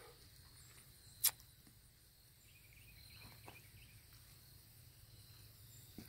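Quiet outdoor ambience: one sharp click a little over a second in, and faint high chirping.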